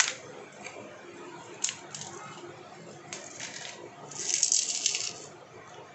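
Crisp fried sabudana (sago) papad breaking and crumbling in the fingers: a sharp crack at the start, a few short snaps, then a longer crackling crunch about four seconds in, the loudest part. The crackle is the sign of a well-fried, very crispy papad.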